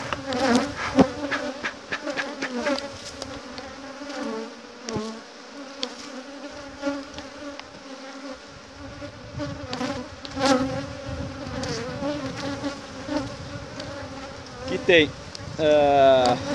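Honeybees buzzing in a steady drone around an opened hive, with a few scattered knocks and clicks.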